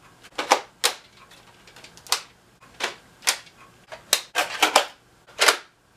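Hard plastic clicks and clacks from a Nerf Modulus Regulator blaster being handled, about ten sharp clicks at irregular intervals.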